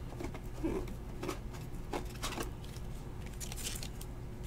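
Faint plastic rustling and light scrapes as a trading card is slid into a clear plastic card sleeve.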